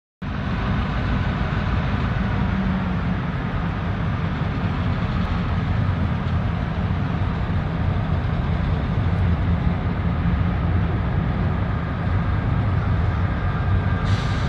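GP38-3 diesel locomotive running, a steady low rumble with a faint steady whine above it, and a short hiss near the end.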